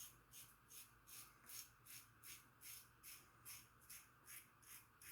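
Gem push-button single-edge safety razor scraping through three days of stubble in short, quick strokes, about two and a half a second: a faint, even rasp on each stroke of the first pass.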